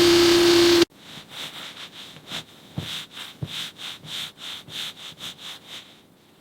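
A machine running with a steady hum that cuts off abruptly about a second in, followed by rhythmic hand rubbing or scrubbing strokes, about two to three a second, that stop near the end.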